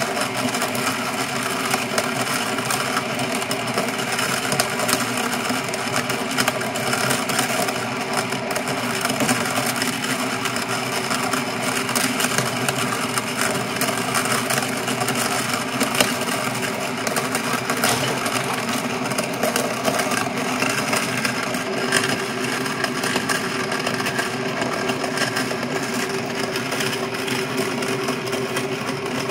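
Cast-iron hand coffee grinder driven by a 6 W, 220 V reversible AC gear motor with a 12.5:1 gearhead, grinding coffee beans at a steady pace. A constant motor-and-gear hum runs under frequent small cracks as the burrs crush the beans.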